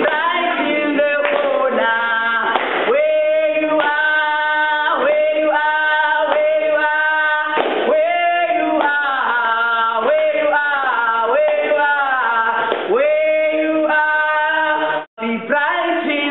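Two sisters singing a song together, sustained sung notes, with a brief break about a second before the end.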